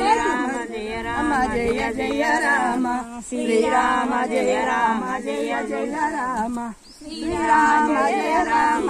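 A group of voices, mostly women's, singing a devotional song together without instruments, pausing briefly for breath twice.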